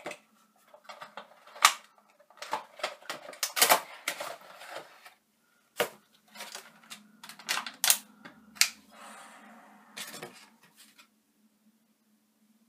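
A Funko Pop vinyl figure being unboxed by hand: cardboard box and clear plastic insert tray handled, making a run of sharp clicks, taps and crinkles that stop near the end.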